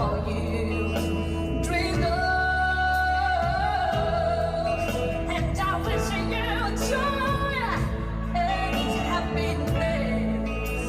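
A female singer holding long, wavering notes in a slow ballad over a band accompaniment with a steady low bass.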